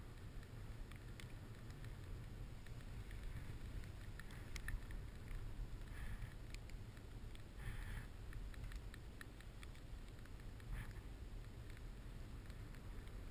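Skis gliding over snow: a steady low rumble of wind on the microphone with scattered small clicks and scrapes, and brief hissing scrapes of the skis about six and eight seconds in.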